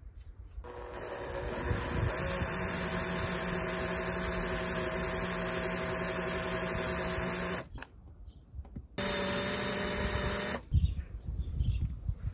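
Cordless drill with a 2 mm bit running and cutting into a metal CPU cooler heatsink, a steady whine. One long run of about seven seconds, a pause of over a second, then a short second run; light handling clatter near the end.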